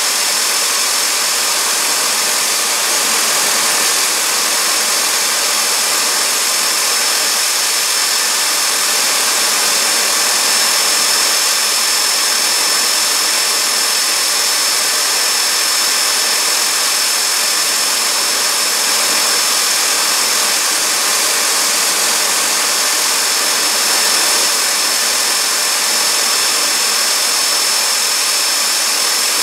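Fairchild J44 turbojet engine running at a steady speed: a loud rush of jet noise with a steady high-pitched whine over it.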